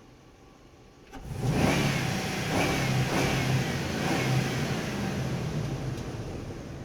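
Truck engine driving through a parking structure: after a click about a second in, the engine comes in suddenly loud and revs up in several short surges, then fades away.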